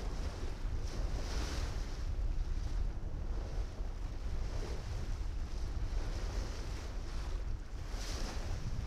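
Wind buffeting the microphone and water rushing past the hull of a small motor tug (sleepvlet) under way, over a low steady rumble. The hiss swells briefly about a second and a half in and again near the end.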